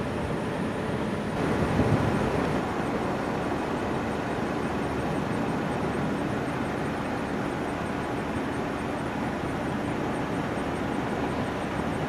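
Jet airliner engines running, a steady noise from an airliner landing and rolling out on the runway, with a brief swell about two seconds in.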